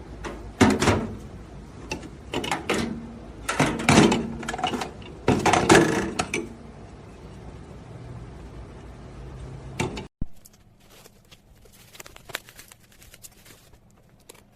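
Handling noise: several loud knocks and clatters of hard objects in quick clusters, then a sudden drop to a quieter stretch with light scattered taps.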